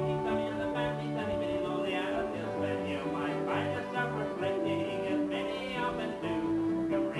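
Live country-style band playing an instrumental passage: two fiddles bowing sustained lines over strummed guitar and a walking bass line.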